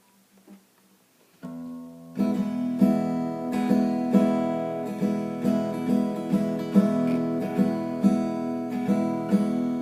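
Acoustic guitar playing a song's intro. One soft chord rings about a second and a half in, then steady rhythmic strumming starts and runs on.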